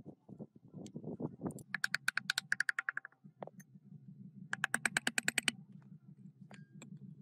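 Two runs of rapid clicking, about ten clicks a second and each lasting one to one and a half seconds, over a low steady hum, with a few scattered soft knocks between.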